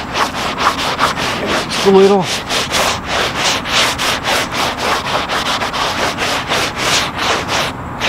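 A hand rubbing back and forth across the wet, rough-sawn face of a walnut slab, spreading water over it in quick scratchy strokes about four a second.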